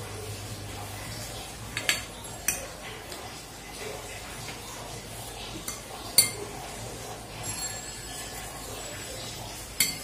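Metal serving spoon clinking against a stainless steel plate and a serving bowl as curry is spooned onto rice: a few sharp, separate clinks, the loudest about six seconds in.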